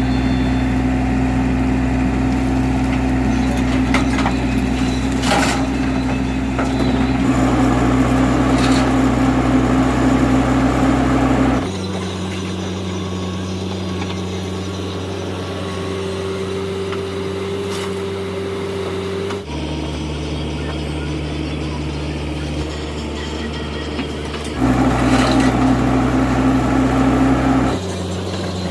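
Heavy diesel engine running steadily, with a few short knocks over it. The engine note and loudness change abruptly several times.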